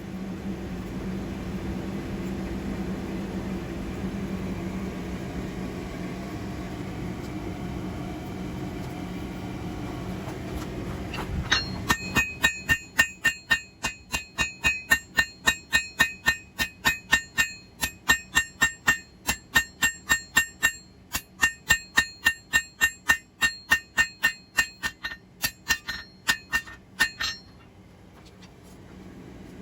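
A steady low hum; about twelve seconds in, a hammer begins striking hot 1/2-inch square steel bar on an anvil, drawing it out to a point, with about three ringing blows a second. The hammering stops a couple of seconds before the end.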